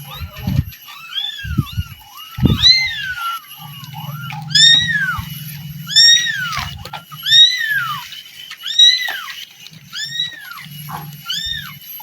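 Small kitten meowing repeatedly, high-pitched arched mews about one every second or so, with a couple of soft knocks in the first few seconds.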